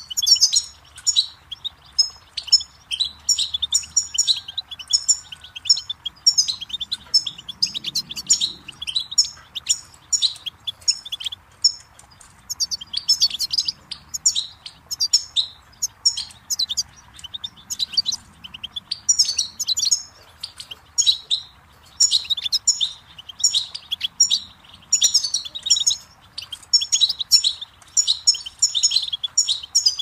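European goldfinch singing: a rapid, tinkling run of high twitters and trills, going on in long phrases with a couple of short breaks.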